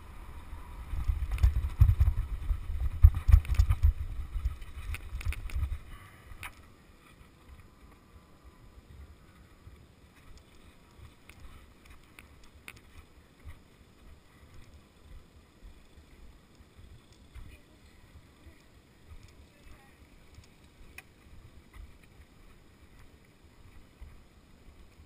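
Wind buffeting the helmet-mounted camera while the bike rolls along the track, a heavy low rumble for about six seconds. It then drops suddenly to a faint low background once the rider slows and stops.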